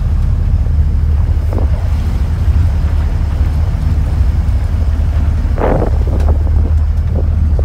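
Wind buffeting the microphone over the steady low drone of a Volvo D4 diesel and its outdrive driving the boat sideways in joystick docking mode, with a short rush of noise about five and a half seconds in.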